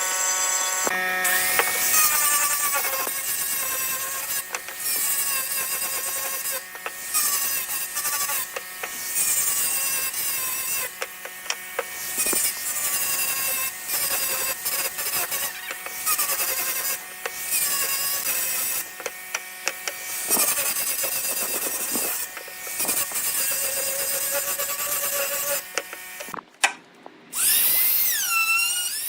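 Power tools working wood, heard as a run of short cuts: motor whines that rise and fall in pitch, with frequent abrupt changes.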